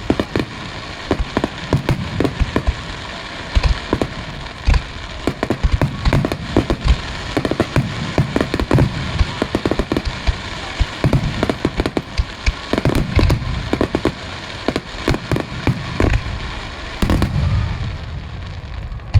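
Starmine fireworks barrage: a rapid, unbroken string of sharp bangs and crackles from shells bursting in quick succession.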